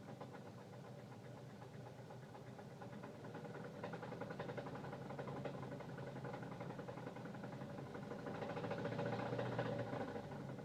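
2006 Saturn Ion engine running with a fast, steady knock. It grows louder about four seconds in and again near the end. The mechanic suspects a piston.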